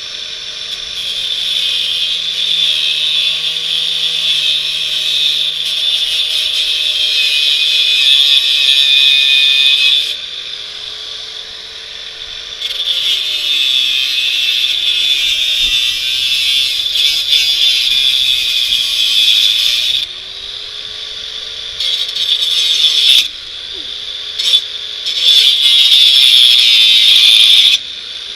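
Grinder with an abrasive cutoff wheel cutting steel bicycle frame tubing in several bouts, a loud hissing grind that stops and starts while the motor's pitch sags as the wheel bites.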